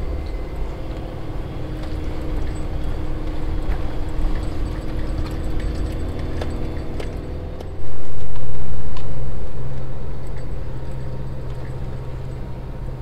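Car engine and road noise on a steep climb, with small rattles and clicks throughout. About eight seconds in, a sudden loud low rumble sets in and fades away over several seconds.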